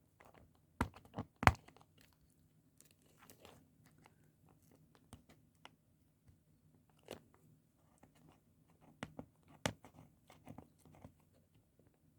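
Fingers picking and tearing at sellotape on a small cardboard box: scattered crackles and sharp clicks, the loudest about a second and a half in and again about ten seconds in.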